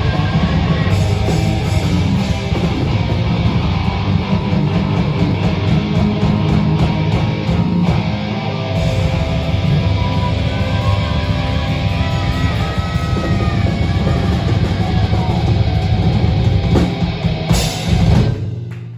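Rock band playing a heavy, guitar-driven song with drums. It ends on a final loud hit near the end, and the sound dies away.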